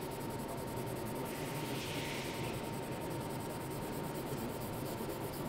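Faint scratchy rubbing of a polishing stone drawn by hand over a hardened-steel mold surface, draw-polishing a laser weld flush, over a steady hiss and a thin steady tone.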